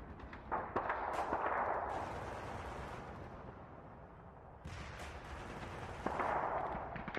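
Battle ambience of distant gunfire, a continuous crackle of shots over a low rumble. It swells about a second in and again near the end, and is quieter in between.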